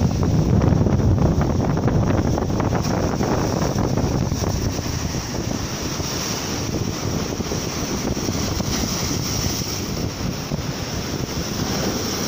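Steady wind buffeting the microphone over choppy Baltic Sea waves breaking and washing against shoreline rocks, a little louder in the first couple of seconds.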